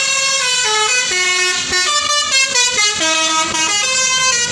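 A tour bus's "basuri" telolet horn, a multi-tone musical air horn, playing a tune: a quick run of held notes that jump from pitch to pitch every fraction of a second.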